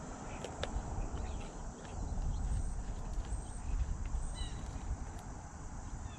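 Low, uneven rumble with a few faint knocks and, around the middle, several short, faint high chirps.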